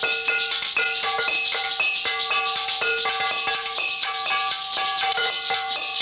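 Instrumental music: a steady shaker rattle under quick runs of short, high pitched notes, with no bass or voice.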